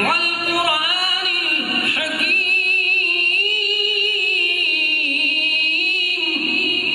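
A man chanting in a melodic, unaccompanied solo voice, holding long wavering notes through one drawn-out phrase, then starting a new phrase near the end.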